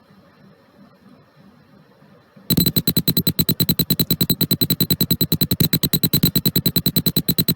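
Piezo buzzer driven by an Arduino switches on about two and a half seconds in, giving a loud, high electronic tone that pulses rapidly, about ten beeps a second. Its pitch is set by the light level that a light-dependent resistor (LDR) reads.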